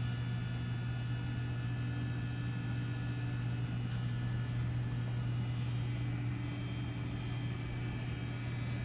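Steady machinery hum, with a few faint high whining tones above it; it holds level and does not change.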